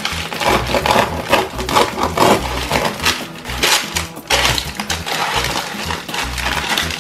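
A knife sawing through the crackly crust of a loaf of wood-fired bread, the crust crunching and splintering in quick irregular strokes as the loaf is cut open and pulled apart. Background music plays underneath.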